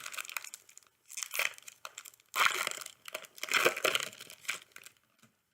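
Crinkling and tearing of a trading-card pack's foil wrapper as it is torn open, in several rustling bursts, the longest two about halfway through.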